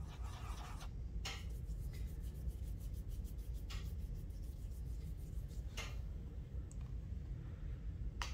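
Paintbrush scrubbing on a dry tempera paint cake to pick up colour, then a few soft strokes of the brush on paper.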